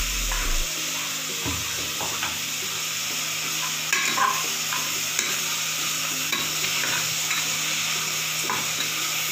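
Chopped onions, tomatoes and ginger-garlic paste sizzling in oil in an aluminium pressure cooker, with a metal slotted spatula scraping and stirring against the pot at an uneven pace.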